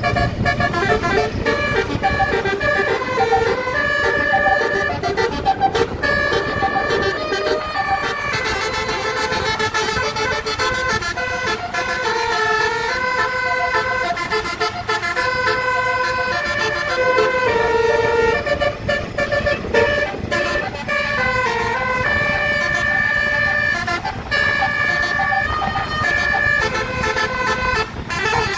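A bus's 18-note telolet air horn playing a long run of melody. Several notes sound together and change in steps every fraction of a second, over the low rumble of the bus and road.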